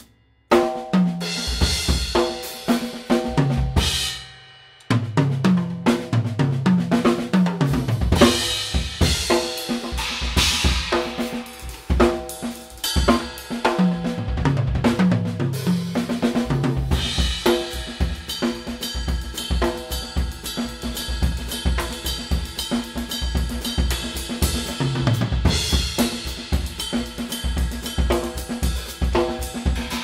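Drum kit played with Aisen Dirt Series B20 bronze cymbals: beats on bass drum, snare and hi-hat with cymbal crashes and rides, and tom fills stepping down in pitch. Playing stops briefly just at the start and again about four seconds in, letting a cymbal ring out, then runs on without a break.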